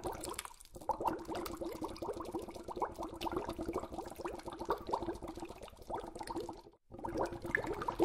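Water bubbling: a dense, continuous stream of short, rising blips of bubbles. It stops briefly about a second in and again near the end, as one sound-effect take gives way to the next.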